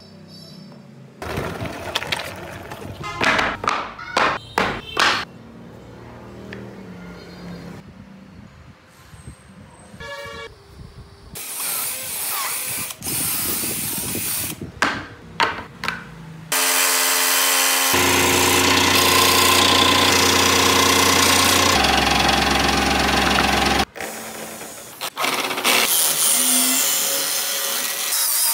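Woodworking sounds in quick succession: a run of sharp knocks and taps in the first few seconds, a cordless drill boring into a wooden board, then a power tool motor running loud and steady for about seven seconds, and near the end a hand chisel cutting a wooden wheel spun by an electric drill used as a lathe.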